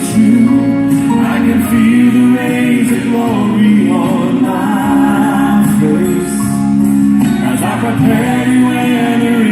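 Gospel song: singing with instrumental backing.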